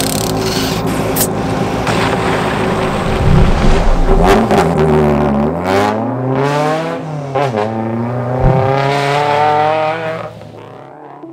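Rally car engine revving hard under acceleration: the pitch climbs, drops at a gear change and climbs again, loudest about three to five seconds in, then fades near the end.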